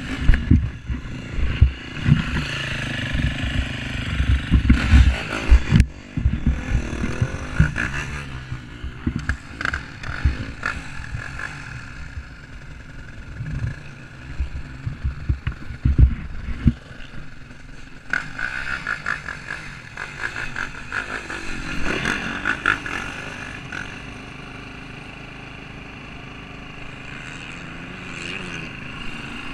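Motocross bike engines running and revving, rising and falling, with heavy irregular low rumbling and knocks through roughly the first half, then a steadier engine drone toward the end.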